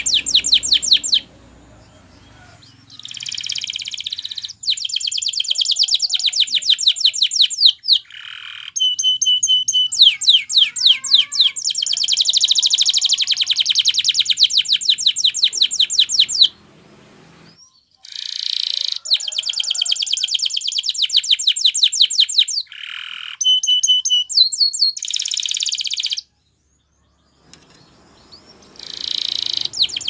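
Canary singing: phrases of very fast, even trills several seconds long, broken by pauses of a second or two, with a few short whistled notes between phrases.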